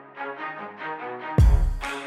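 Background music: a light pattern of quick repeated notes, then a heavy bass hit and drums come in near the end.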